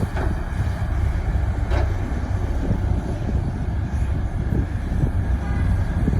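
Heavy construction machinery's diesel engine running steadily with a deep, low rumble; a brief higher-pitched sound cuts in about two seconds in.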